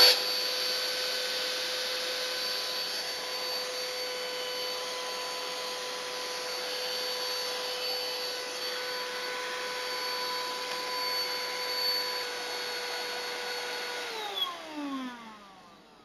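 Hoco PH16 handheld cordless vacuum cleaner running at full power, its 35,000 rpm motor giving a steady, fairly noisy high whine over a rush of air. Near the end it is switched off and the whine falls in pitch as the motor spins down.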